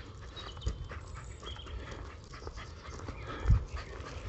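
Rapid panting breaths, with two low thumps, one about two-thirds of a second in and a louder one about three and a half seconds in.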